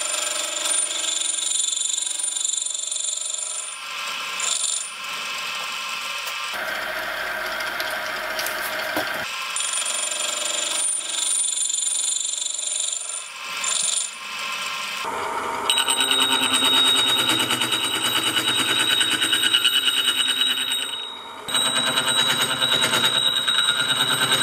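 Milling machine cutting gear teeth with a gear cutter into a blank turned by a dividing head: a steady metallic whine with high ringing tones. It breaks off and restarts several times between passes, and it gets louder about two-thirds of the way in.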